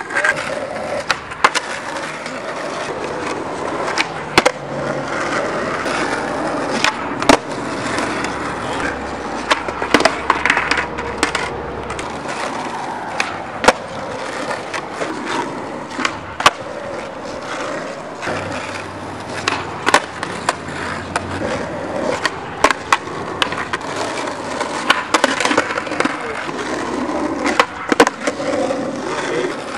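Skateboard wheels rolling on asphalt, with many sharp clacks scattered irregularly throughout as the board is popped and lands.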